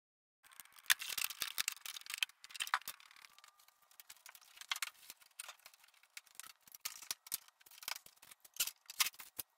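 Roller spreading roll-on truck bed liner across a truck cab floor, an irregular crackling made of many small clicks.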